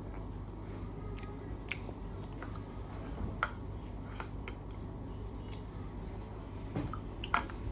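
A child eating with a metal spoon from a plastic cup: a handful of small, scattered spoon clicks and soft mouth sounds over a steady low hum.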